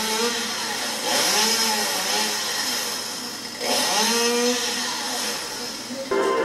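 Chainsaw revving up and falling back twice, each run lasting about two seconds, as the saw cuts into a palm tree.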